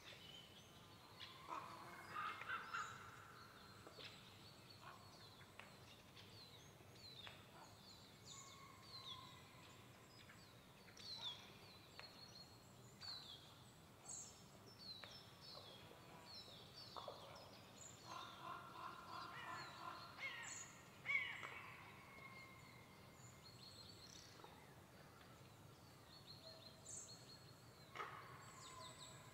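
Faint pine-forest ambience with frequent short, high, falling calls of small birds, and a few louder, harsher bird calls about two seconds in and again from about eighteen to twenty-one seconds in.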